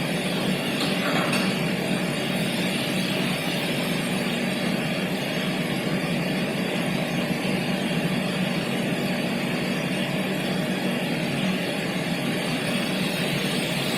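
Aluminium cutting machine running steadily with an even, unbroken mechanical noise.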